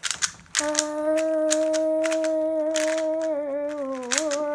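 A young voice holding a long, steady hummed note that dips in pitch near the end, over the quick plastic clicking of a Rubik's cube being turned.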